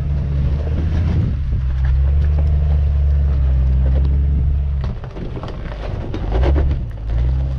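Lifted Jeep Cherokee's engine pulling hard under load as it crawls up a rock ledge. It holds steady for a few seconds, eases off about five seconds in, then pulls again near the end.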